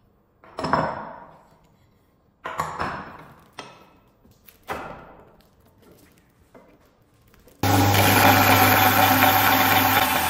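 Steel C-clamps clanking about four times as they are taken off a glued wooden knife handle, then suddenly, about seven and a half seconds in, a belt grinder running steadily with a motor hum as the wooden handle is pressed against the sanding belt to shape it.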